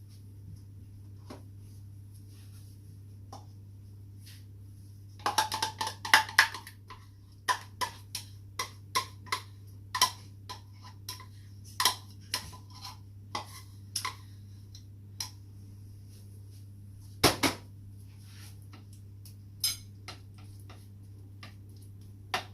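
A utensil knocking and scraping against a bowl and a baking dish while a mixture is poured and spread over a bake. There is a busy run of clinks about five seconds in, scattered sharp knocks after it and one loud knock later on, over a steady low hum.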